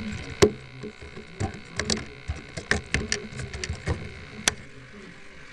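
A string of sharp, irregular clicks and knocks, about a dozen in all, over a faint steady hum.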